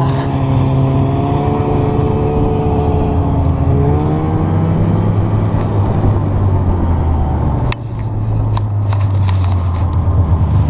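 Snowmobile engine idling with a steady low hum and a wavering whine over it for the first few seconds. A sharp click comes just under eight seconds in, followed by a few lighter clicks.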